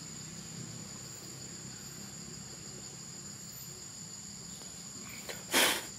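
Insects buzzing steadily at a high pitch, a constant chorus without breaks. A brief loud burst of noise cuts in near the end.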